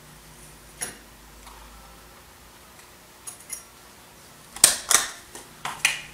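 Small plastic sample containers and their lids clicking and knocking as they are handled: one click about a second in, two light ticks past the three-second mark, then a quick run of louder, sharper clicks near the end.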